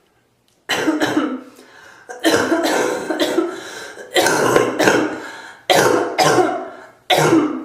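A person in a coughing fit: five loud bouts of harsh coughs, about one every second and a half, several with two coughs in quick succession.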